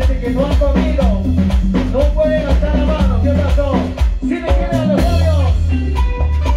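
Live cumbia band playing loudly: a steady drum beat over a heavy bass line, with a melody that bends in pitch and a cymbal-like crash about five seconds in.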